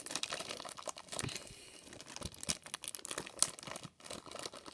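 Clear plastic bag full of foam balls crinkling and crackling in irregular bursts as hands squeeze and pull at it, trying to get it open, with one sharper crackle about three and a half seconds in.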